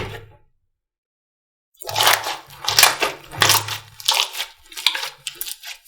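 Slime being squeezed and pressed by hand, crackling and popping in about six bursts roughly every two-thirds of a second, after one sharp pop at the start.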